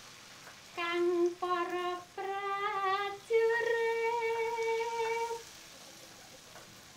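A woman's voice humming a slow melody in a few held notes, the last held for about two seconds with a slight waver, stopping about five and a half seconds in.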